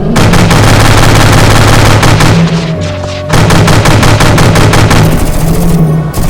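Rapid machine-gun fire sound effect over loud music with a heavy bass line. The firing breaks off for about a second a little before halfway, then resumes.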